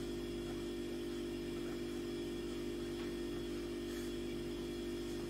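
Steady electrical hum made of several level tones, the room's background. Faint scratching of a marker drawing on a whiteboard over it.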